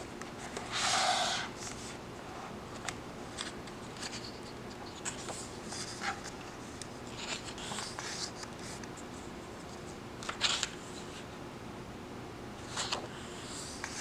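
Hardcover book being opened and its paper pages turned by hand: a louder swish about a second in as the cover swings open, then soft paper rustles and a few sharper page flicks.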